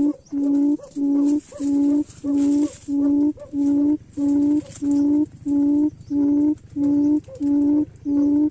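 Wild quail calling: a long run of low hooting notes, about two a second, each on the same pitch.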